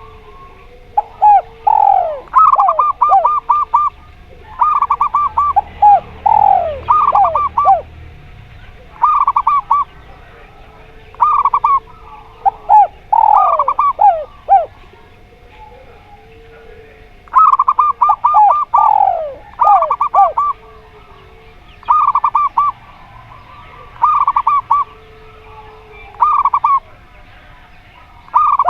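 Zebra doves and spotted doves cooing back and forth: groups of rapid staccato coo notes alternate with lower, falling drawn-out coos, repeating every couple of seconds. A faint steady hum runs beneath.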